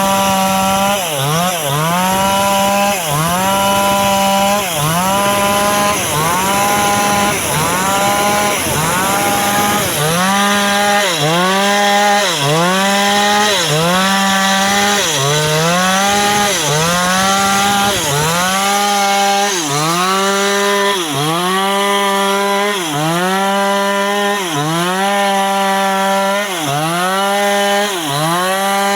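New West 588 two-stroke chainsaw running at high revs, its pitch dipping briefly and recovering about once a second. A rough, rattly noise runs under it for the first ten seconds and then drops away.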